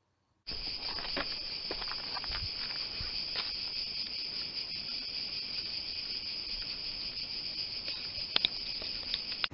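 A dense, steady chorus of insects chirring, starting abruptly about half a second in, with a few sharp clicks near the end.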